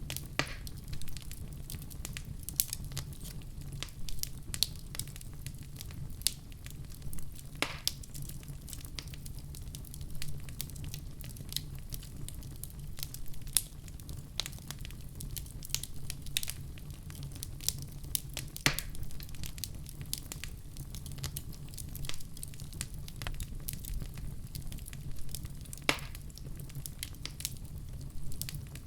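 Wood fire burning with a steady low rumble and frequent sharp crackles, with a few louder pops.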